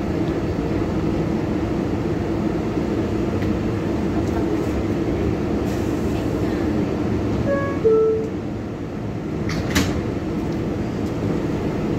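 Interior sound of a Kawasaki R188 subway car running between stations: a steady rumble of the propulsion and wheels on the rails with a low hum. A brief two-note tone sounds about two-thirds of the way in, followed by a sharp click.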